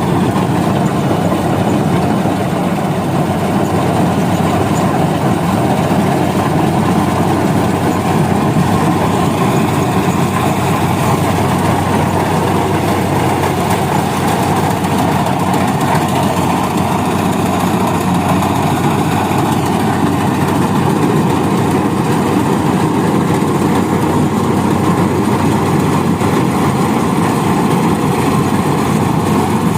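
Rice-harvesting machine's engine running steadily and loudly, with a constant low hum and no change in speed.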